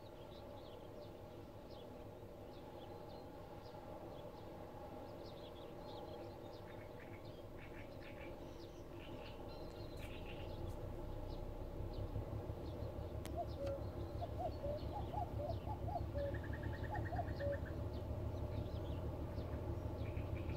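Birds chirping and calling over a low, rhythmically pulsing diesel engine rumble that grows louder from about halfway through: the pair of class 742 diesel locomotives slowly approaching with a freight train.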